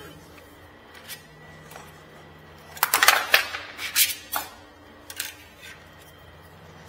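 Metal paint shield clinking and scraping against the floor and baseboard as it is set down and pushed into place. There are a few light clicks, then a busy cluster of clinks about three seconds in, and one more just after five seconds.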